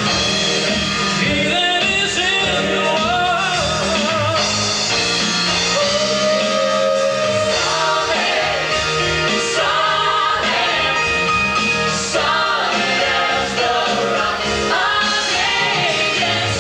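Singing voices with band accompaniment in a gospel-style song.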